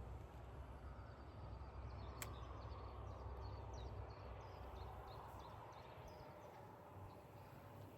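Faint lakeside ambience: a low rumble of wind on the microphone that eases off about two thirds of the way through, with scattered small bird chirps and a single sharp click about two seconds in.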